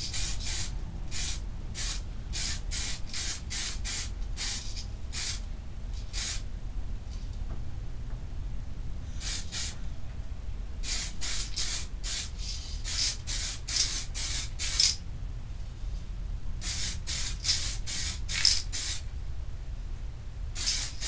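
Aerosol can of DuraBlue spray-on bluing hissing in many short bursts, about two a second, as a light coat is sprayed onto a rifle. The runs of bursts are broken by pauses of a couple of seconds, over a steady low hum.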